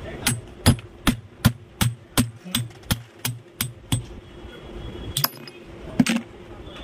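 Hammer blows on the steel shaft of a ceiling fan's stator, metal on metal, knocking the shaft out of the stator core. A quick, even run of about a dozen strikes, then two more spaced-out blows near the end.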